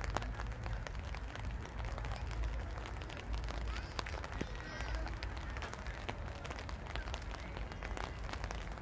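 Footsteps on wet paving with scattered rain patter, a dense run of small clicks over a steady low rumble.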